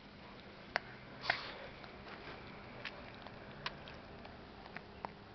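Small dog sniffing close up, with a handful of sharp clicks and taps scattered through, the loudest about a second in.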